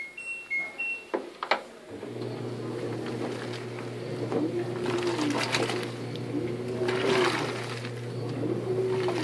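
LG WaveForce top-loading washing machine: alternating two-tone beeps in the first second, with the display showing the dE lid-open error code. About two seconds in, the motor starts with a steady hum. The pulsator then agitates the water and clothes, making a whine that rises and falls about every two seconds, with bursts of water sloshing.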